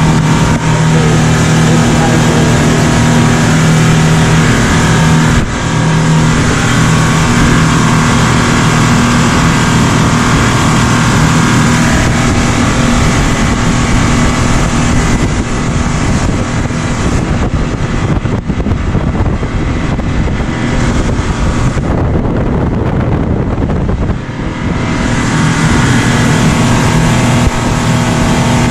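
Speedboat engine running at speed: a steady drone under a loud rushing hiss. The hiss thins briefly about three quarters of the way through.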